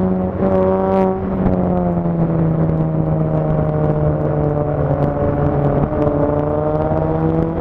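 Motorcycle engine running steadily while riding at road speed, with wind and road noise. Its note drops a little about a second in and rises back about six seconds in.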